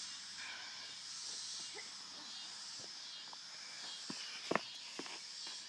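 Steady outdoor hiss, then a few short knocks and scuffs of people moving and grappling about four seconds in, the loudest one about half a second later.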